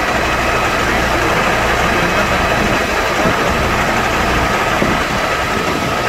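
Fire engine's engine running its water pump at a steady drone, with a thin steady whine over it.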